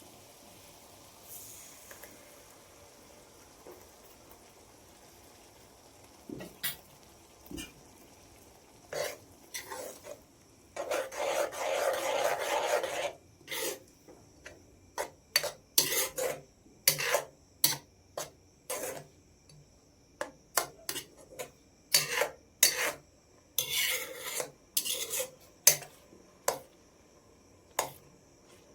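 Metal utensil scraping and clinking against a cooking pot, in short, separate strokes with pauses between them. One longer scrape lasts about two seconds near the middle, and the strokes come more often in the second half. The first few seconds are nearly quiet.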